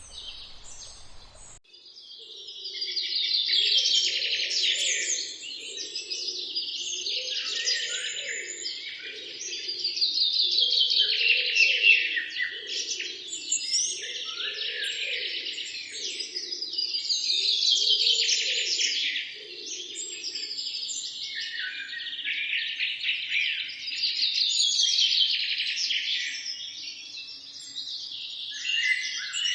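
Songbirds singing in a dense chorus of rapid trills and chirps, coming in phrases of a few seconds each, starting about two seconds in. A lower, softer pulsing call repeats about once a second beneath them until about two-thirds of the way through.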